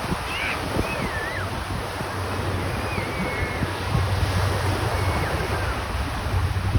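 Wind buffeting the microphone over water noise, with a steady low hum underneath. A few faint, high, sliding whistles come through at intervals.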